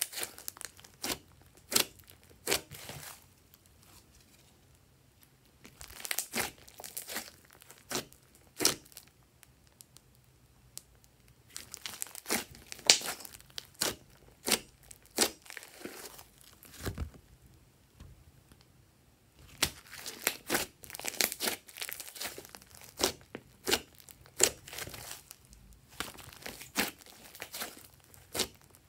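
Hands squishing, pressing and poking a large mass of glossy slime, giving irregular sharp clicks and pops of trapped air. They come in clusters broken by short quiet pauses.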